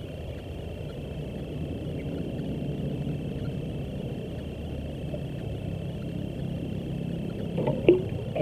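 A steady low rumble, with a short sharp knock near the end.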